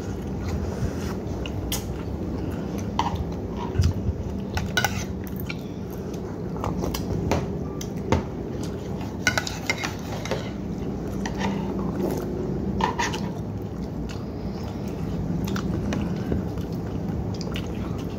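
A metal spoon clinks and scrapes against a plate now and then, with close-up chewing, over a steady low hum.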